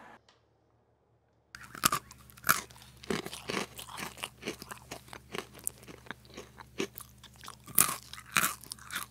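Crunching and chewing of Oreo cookies, close to the microphone, in irregular crackly bites. The chewing starts after about a second and a half of silence.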